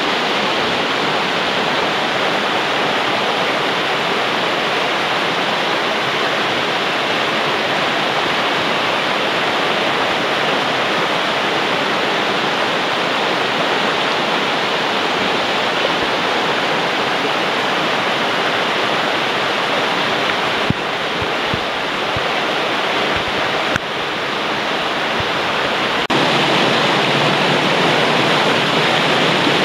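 Steady rushing of a small mountain stream's current pouring over rocks into a pool, growing louder a few seconds before the end.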